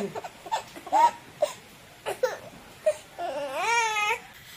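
Infant making short squeals and vocal sounds, then a longer wavering cry about three seconds in.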